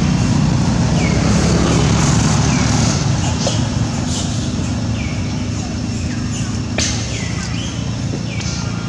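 Steady low engine-like hum. Over it, a short high chirp that falls in pitch repeats about once a second, and there is one sharp click near the end.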